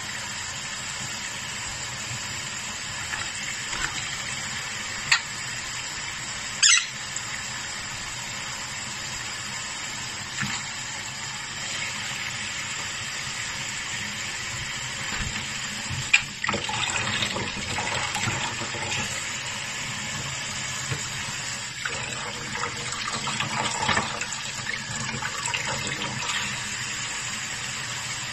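Kitchen tap running steadily into a stainless steel sink, the stream splashing on the metal, while a sun conure bathes in it. A few short, sharper splashes stand out, busier in the second half.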